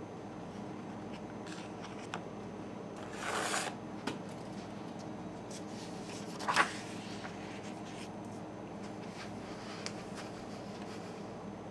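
Paper being handled on a wooden tabletop: a brief rustle about three seconds in, a sharper, louder rustle or tap about six and a half seconds in, and a few light taps, over a steady low hum.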